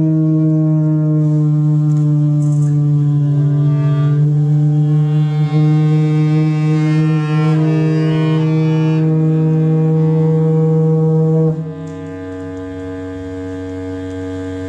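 Conch shell and bass clarinet playing together: a loud, steady held low note, foghorn-like, with shifting higher tones above it. About eleven and a half seconds in the loud note breaks off, leaving a quieter, lower held tone.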